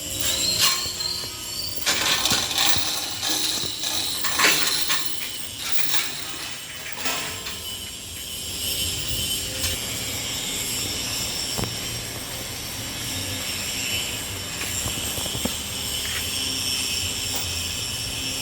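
Metal knocks and clanks in a metalworking shop over the first half, then a steady machine noise with a high, even whine.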